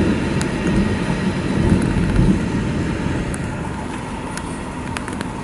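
Freight train of tank wagons rolling past, a steady low rumble of wheels on rail with a few sharp clicks, easing off slightly over the last seconds.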